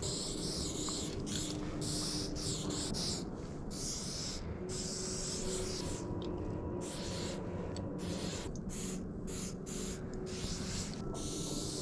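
Aerosol spray-paint cans hissing in short on-off bursts, stopping and starting again and again, with a low background rumble.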